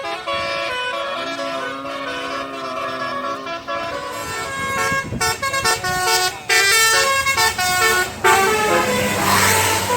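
Bus telolet horn, a multi-tone air horn, sounding a melody of held notes that step up and down. About five seconds in it switches to a run of short, loud blasts. Near the end a burst of hiss rises over a low engine hum.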